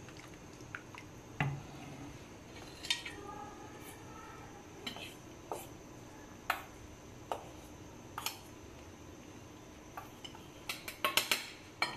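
Silicone spatula clicking and tapping against a non-stick frying pan while a milk and cornflour cream is stirred over low heat: scattered single clicks, then a quick run of clinks near the end.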